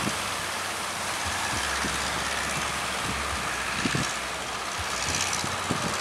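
Steady rush of surf and strong wind at a river mouth, with a faint low hum in the middle and a few soft low thumps.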